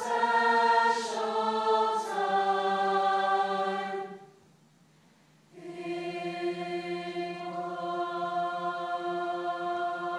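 Large mixed high-school choir singing held chords, changing chord twice, cutting off together about four seconds in, then after a second's pause singing one long, softer chord.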